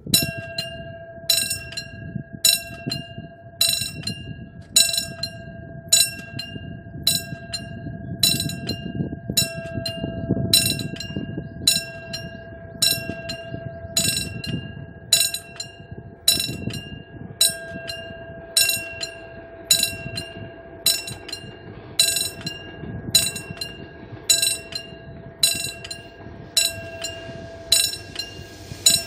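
Level-crossing warning bell ringing about once a second, starting abruptly as the crossing activates to signal an approaching train.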